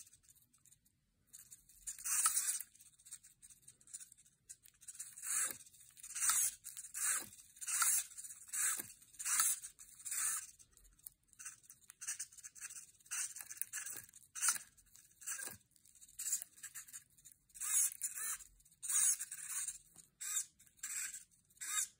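Small hobby servos whirring in short bursts, roughly one a second, as they pull the strings of a 3D-printed robotic hand's fingers.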